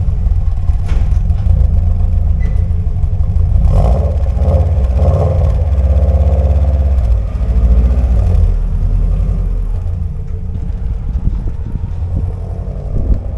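Subaru Impreza WRX's boxer engine running through a Blitz turbo-back exhaust, deep and rumbly. It is revved briefly a couple of times about four seconds in, then settles back and is quieter over the last few seconds.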